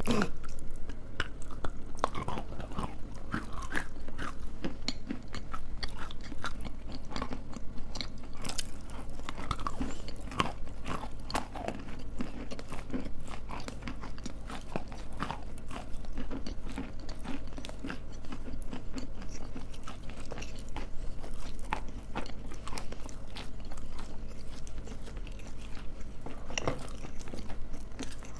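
Close-miked ASMR eating: biting and chewing hard, dry pieces, a dense run of crisp crunches one after another.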